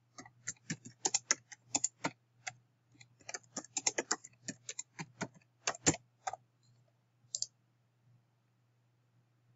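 Computer keyboard typing: quick, irregular keystrokes for about six seconds, then a pair of quick clicks a second later. A low steady hum runs underneath.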